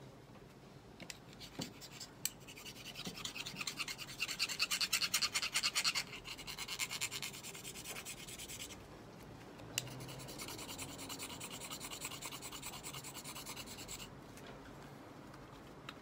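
A scraper rasping quickly along a fire-starter flint rod over tinder, shaving the rod so that it will light more easily. The strokes come in two long runs of fast scraping, and the first run is louder.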